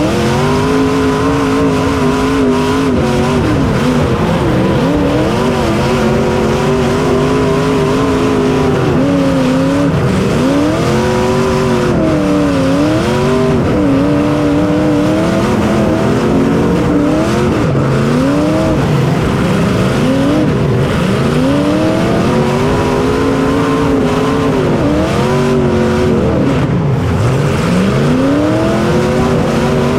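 Small racing engine heard onboard at full race pace, its pitch climbing and dropping again and again every two to four seconds as it revs out on each straight and backs off for each turn.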